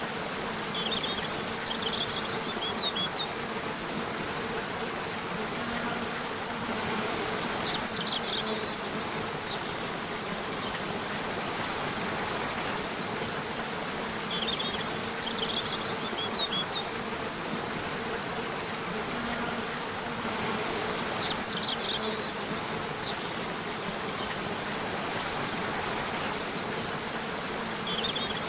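Nature soundscape: a steady hiss of running water with a faint low hum under it. Clusters of short, high bird chirps come back every six to seven seconds.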